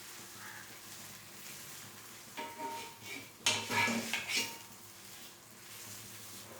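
Metal utensil knocking and scraping against a cooking pan, a cluster of ringing clinks between about two and a half and four and a half seconds in, over a faint steady sizzle of frying.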